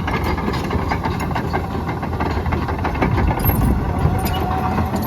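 John Deere 950J crawler dozer working dirt: its Liebherr diesel engine runs steadily under load while the steel tracks and undercarriage clank and rattle.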